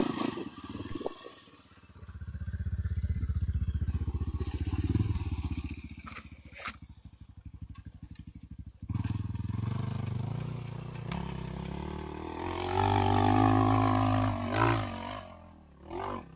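Enduro dirt bike engine running under load as the bike attempts a steep, rocky hill climb, the revs rising and falling with the throttle. The engine is loudest about thirteen seconds in and drops away near the end.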